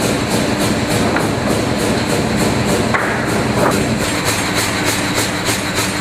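Firewood processor running: a loud, steady mechanical clatter with an even beat of about three to four a second.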